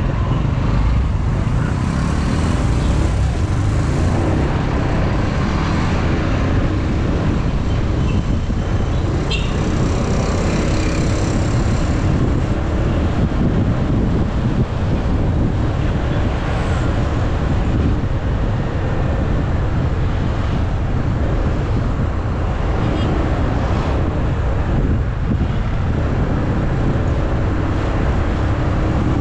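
Wind rushing steadily over a motorcycle-mounted action camera's microphone while riding, with the motorcycle's engine and road and traffic noise underneath.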